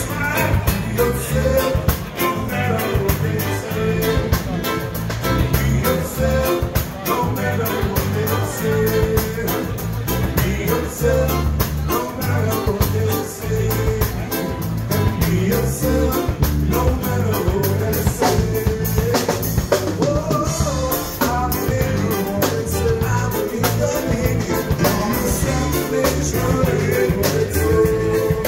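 Live music: an electric guitar played with a singing voice over a steady drum beat and bass.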